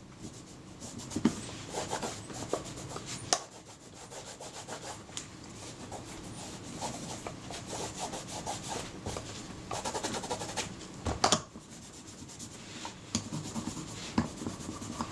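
Cloth buffing polish off the leather covering of a Kodak Retina camera in quick, scratchy back-and-forth strokes, with a few sharper knocks.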